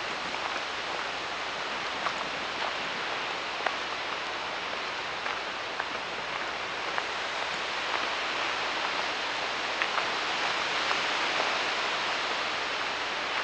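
Footsteps on a dry, leaf-covered dirt trail, with soft irregular crunches, over a steady hiss.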